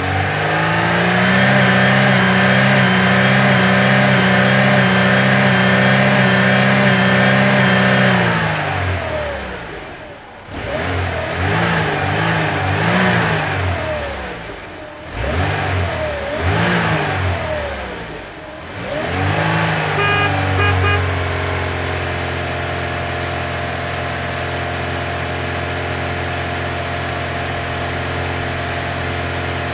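Electronic engine sound from a battery-powered toy vehicle: a steady buzzy drone that swoops up and down in pitch for several seconds in the middle, like revving, then settles steady again.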